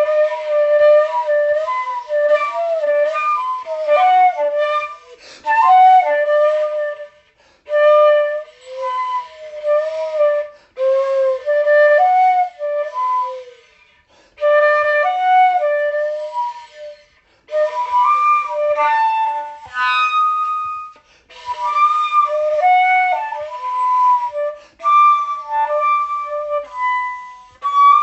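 Solo flute playing a melody in short phrases separated by brief pauses.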